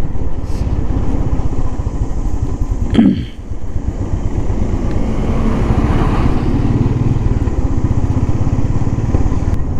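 Motorcycle engine running steadily while riding uphill. About three seconds in there is a short sharp sound with a falling pitch, after which the engine sound briefly drops before picking up again.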